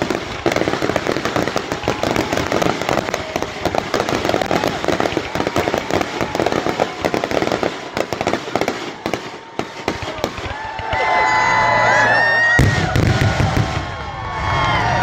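Fireworks grand-finale barrage: a dense, rapid string of bangs and crackles for about ten seconds. It eases off, and a crowd cheers and whoops over the last few seconds.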